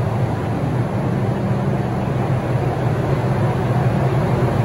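Steady low rumble of a New York City subway station, the continuous hum of the underground with no distinct events.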